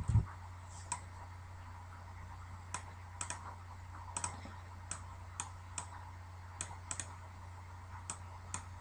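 Irregular, sharp clicks of a computer mouse and keyboard, about twenty in all, over a steady low hum.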